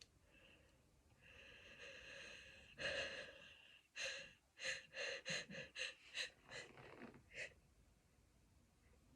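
Gasping, hitching breaths of a sneeze build-up. A long drawn-in breath ends in a short forceful burst about three seconds in, then a run of about eight quick breathy catches, some seconds apart and some closer.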